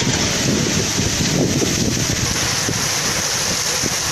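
Heavy rain pouring down in strong wind, a steady rushing hiss, with gusts buffeting the microphone in uneven low rumbles.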